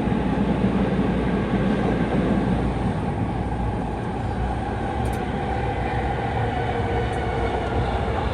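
Fukuoka City Subway train heard from inside the car, running steadily between stations: a continuous rumble and rush of wheels and tunnel air with a faint motor whine.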